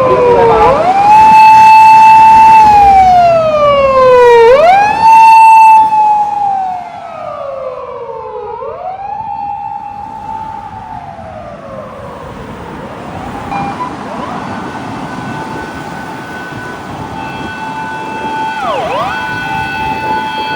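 Emergency vehicle siren wailing loudly: each cycle rises quickly, holds, then slides down, about three times over. About seven seconds in it drops away, leaving a fainter, steadier siren tone with one brief dip in pitch near the end.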